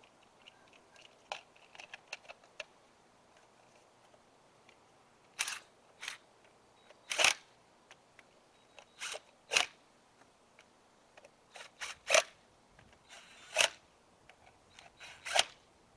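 Scattered sharp clacks and clicks of tools and metal parts being handled during brake work, with about eight louder knocks in the second half and quieter ticks in between.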